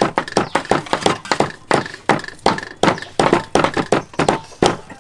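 Several cleavers chopping pork into mince on thick wooden chopping blocks, an irregular, overlapping run of knocks, several a second.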